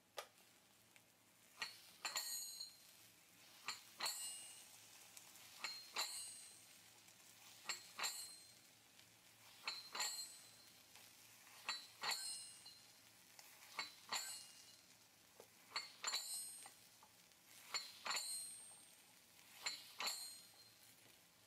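Takoyaki Kōjō Tonton automatic takoyaki maker at work: a sharp metallic clack with a bell-like ring, coming in pairs about every two seconds as its mechanism turns the batter balls.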